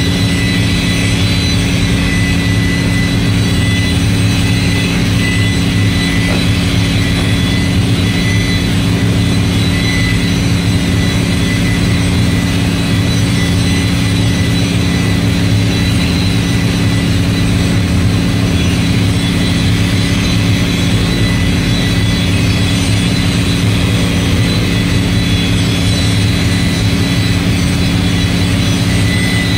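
Steady, unchanging machine drone: a low hum with a thin high whine on top, holding the same pitch and level throughout.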